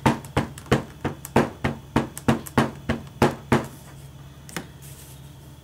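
Clear acrylic stamp block with a frog stamp tapped repeatedly onto a Memento black ink pad to ink the stamp: about a dozen quick, even knocks over three and a half seconds, then one softer tap a second later.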